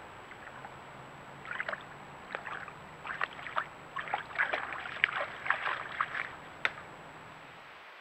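Water splashing: an irregular run of short splashes that starts about a second and a half in, grows busier, and stops near the end.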